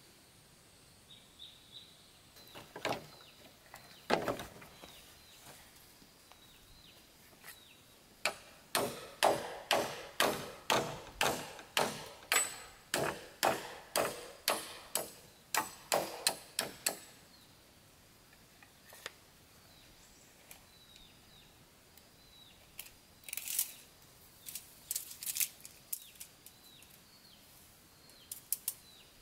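A steady run of about twenty sharp knocks, about two a second, lasting some nine seconds, with a few scattered knocks before and after. Birds chirp throughout.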